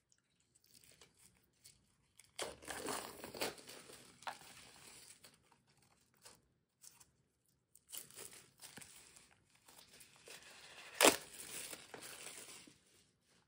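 Thin plastic shrink wrap crinkling and tearing as it is peeled off a hardcover planner, in two spells, with a single sharp click about eleven seconds in.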